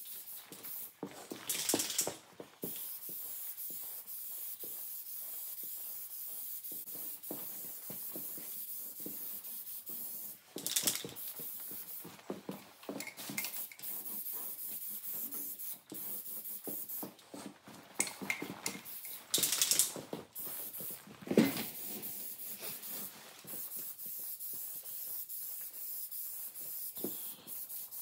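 Aerosol spray-paint can hissing steadily as paint is sprayed in passes, with a few short knocks and rattles in between.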